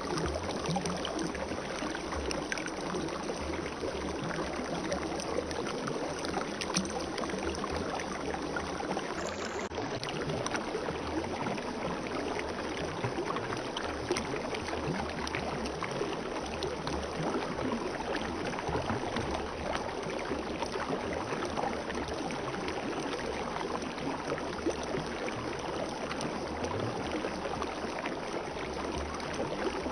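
Spring water flowing in a steady, even rush.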